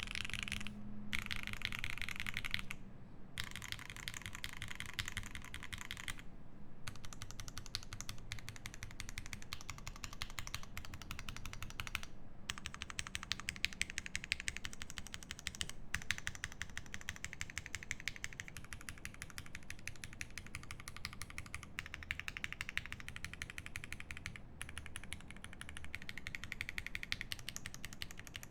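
Fast, continuous typing on an E7 V2 mechanical keyboard with lubed Pinoko switches, an aluminium plate and GMK keycaps: a dense run of keystroke clacks with a few brief pauses.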